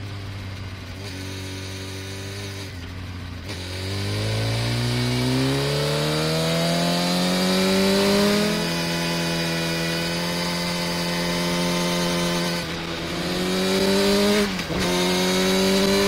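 Motorcycle engine recorded onboard while riding: a steady cruise, then the engine note climbs for several seconds under acceleration and levels off. Near the end it rises again, with a brief sharp dip, like a quick gear change.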